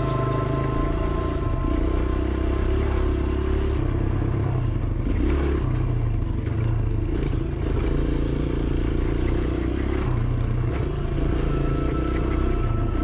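Dirt bike engine running under a rider's varying throttle on a trail ride, its drone shifting up and down every few seconds.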